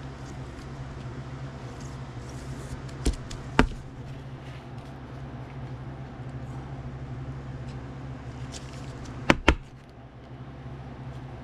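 Rigid plastic toploader card holders clacking together as they are handled: two clicks about three seconds in and a quick pair about nine seconds in, over a steady low hum.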